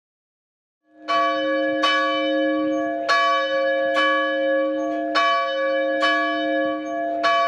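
A church bell ringing: one bell of a single pitch struck about seven times at uneven intervals, each strike ringing on into the next.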